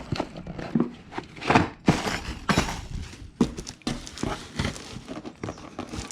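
Irregular clacks and knocks, about a dozen sharp ones, as boxed brake pads and their clips are handled and set down.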